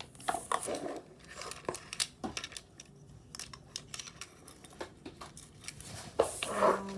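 Small plastic fidget toys being rummaged through and handled: irregular light clicks, taps and crinkly rustles.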